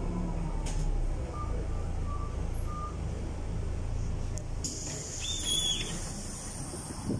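Mercedes-Benz O345 city bus running, with its engine's low rumble and a whine falling in pitch as it winds down. Three short beeps sound about 1.5 to 3 seconds in. About five seconds in, a hiss of compressed air sets in and runs on.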